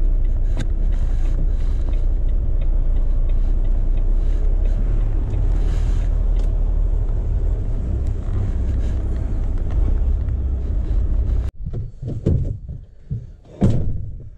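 Volvo HGV cab interior with the diesel engine running: a steady low drone that cuts off suddenly about eleven and a half seconds in. A few quieter rustles and knocks follow, one louder near the end.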